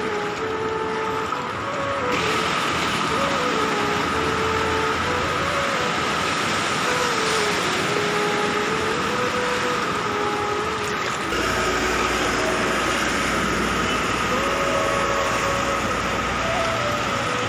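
Floodwater rushing and splashing as vehicles, a small car and then a truck, wade through the flooded street, pushing up wakes. A faint tune of stepping notes runs over it, and the sound shifts abruptly about two and eleven seconds in.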